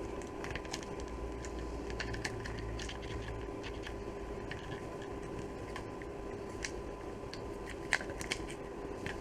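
Scattered light clicks and taps of a plastic cover being handled and pressed to clip it back on, with one sharper click about 8 seconds in, over a steady background hum.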